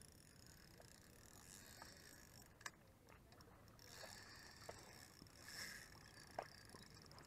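Near silence, with a few faint clicks from handling and cranking a Shimano Sahara spinning reel.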